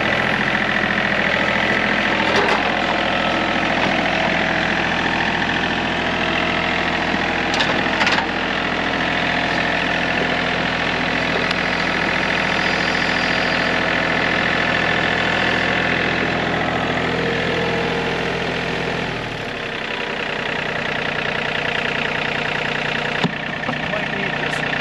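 An engine idling steadily, its sound changing about three-quarters of the way through, with a couple of sharp knocks early and about a third of the way in.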